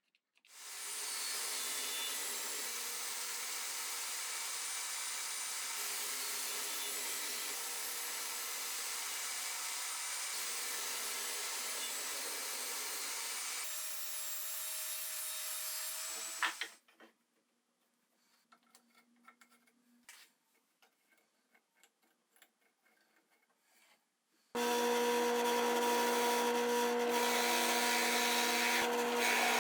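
Electric power saw running through softwood 2x4 stock for about sixteen seconds, then stopping. A few light knocks and clicks follow, and then the saw starts again, louder, about 25 seconds in.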